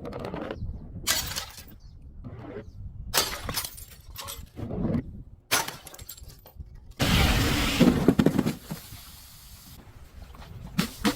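Glass breaking: a series of separate sharp crashes, then about three seconds of continuous loud shattering and crunching starting about seven seconds in.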